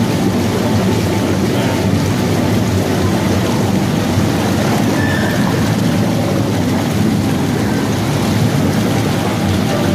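Jacuzzi jets running, the water churning and bubbling with a steady, loud rush.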